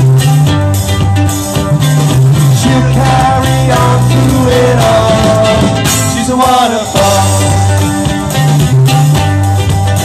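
Live band playing an upbeat, summery tune: ukuleles and electric guitar strummed in a steady rhythm over a strong bass line and drums.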